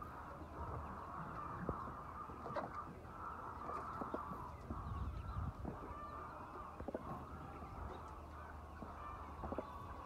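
A large flock of chickens clucking and calling together: a dense, steady chatter of many overlapping birds, with single sharper calls standing out now and then.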